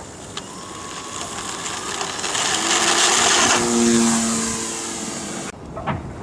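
Electric motor and propeller of a large foam RC Cessna running hard on the takeoff run, growing louder as the plane lifts off and passes close by, then cutting off suddenly near the end.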